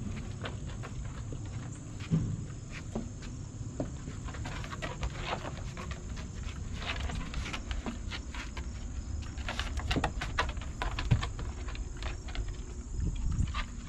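A pack of basset hounds moving about on wooden deck boards: scattered clicks and scuffs of paws and nails, irregular throughout, over a steady low rumble.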